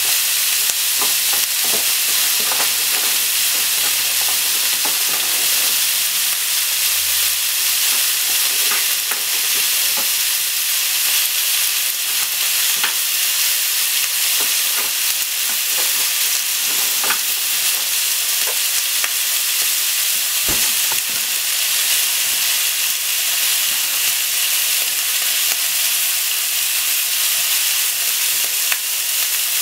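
Sliced pork and onion sizzling in a hot frying pan: a steady frying hiss with scattered small pops and crackles of spitting fat.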